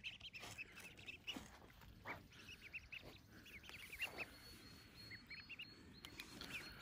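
A brood of wild ducklings peeping faintly, with many short high calls scattered throughout.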